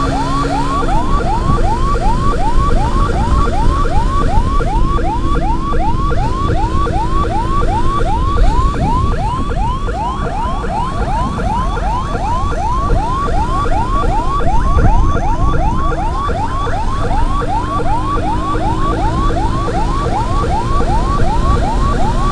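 Emergency-escort siren on a fast yelp, each wail sweeping upward about three times a second without a break, over steady low road and engine noise from riding.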